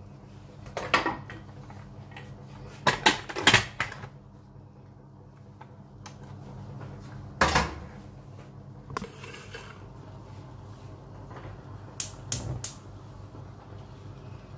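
Stainless-steel pressure cooker being closed: a few sharp metal knocks and clatters as the lid and weight are handled and fitted, over a steady low hum.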